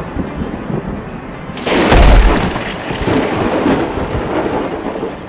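Thunderclap: a sudden loud crack about two seconds in, with a deep rumble that slowly dies away, over a steady hiss of rain.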